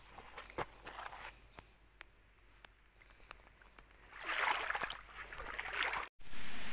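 Shallow stream water sloshing and splashing, with scattered small clicks and a louder burst of splashing about four seconds in. The sound drops out briefly near the end and comes back as a louder steady hiss.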